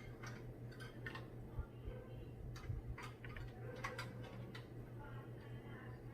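Scattered light clicks and taps of computer parts being handled and fitted into a PC case, with a few sharper knocks around the middle, over a steady low hum.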